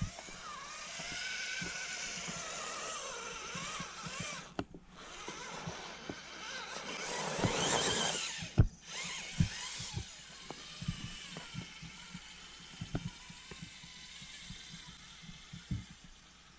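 Axial Capra RC rock crawler's electric motor and geared drivetrain whining, rising and falling with the throttle as it climbs rock, swelling loudest a little past halfway. A sharp knock right after that swell is the loudest sound. In the last half there are scattered clicks and knocks of the tyres and chassis on rock.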